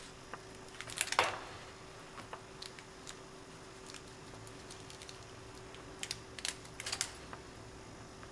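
Fingers handling small paper roses and glue dots on a card: scattered light clicks and ticks, loudest in a cluster about a second in and again around six to seven seconds, over a faint steady hum.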